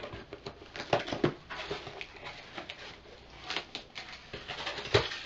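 A scalpel slicing through the packing tape on a cardboard box and the flaps being pulled open: irregular scratching, tearing and crinkling of tape and cardboard, with one sharp knock near the end.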